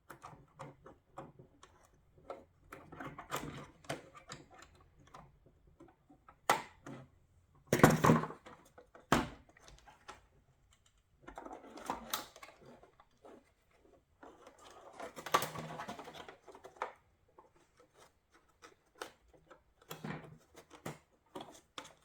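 Hands and tools working at a plastic headlight housing and its twist-lock bulb socket: irregular clicks, taps and scraping of hard plastic, with a couple of sharper knocks about eight and nine seconds in. The socket is stiff and hard to turn.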